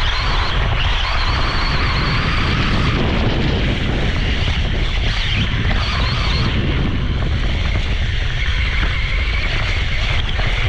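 Electric drive of a 1/4-scale LOSI Promoto MX RC motorcycle running over dirt and grass, its motor whine rising and falling with the throttle. Heavy wind buffeting on the bike-mounted camera's microphone makes a loud low rumble throughout.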